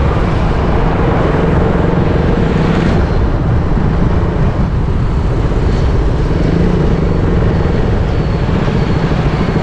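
Motorcycle riding along a road: steady, loud wind rush over the microphone with the engine running evenly underneath.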